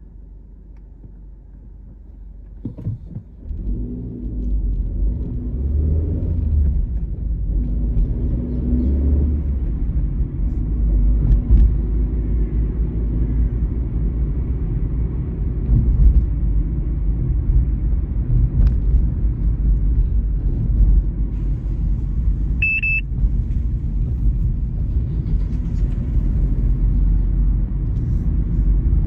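Low, steady rumble of a car driving. It is quiet at first, then the rumble rises about three seconds in as the car pulls away from a standstill and keeps on. A single short high beep sounds about three quarters of the way through.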